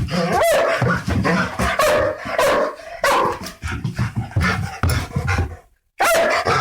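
Large dog barking in rapid, repeated barks. They break off briefly near the end and then start again.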